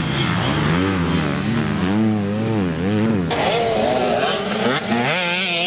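Motocross dirt bike engines racing on the track, their revs swinging up and down about every half second as the riders work the throttle. About three seconds in, another bike's higher, sharper engine note takes over.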